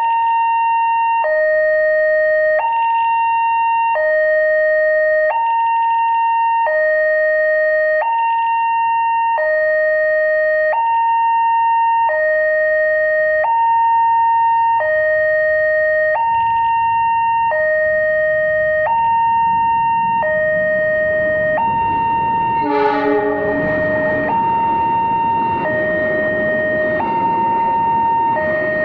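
New electronic warning siren at a railway level crossing, sounding steadily in a two-tone hi-lo pattern, each tone held about a second and a quarter. In the last third a broad noise builds up beneath it, and about 23 seconds in there is a short horn-like blast.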